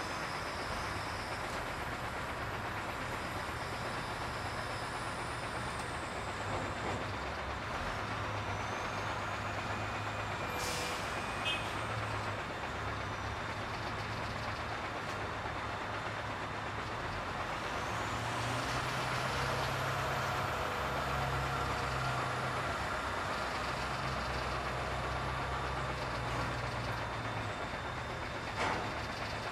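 Container truck's diesel engine idling steadily, heard from inside the cab, with a faint high whine that rises and falls. Two short sharp sounds stand out, about eleven seconds in and near the end.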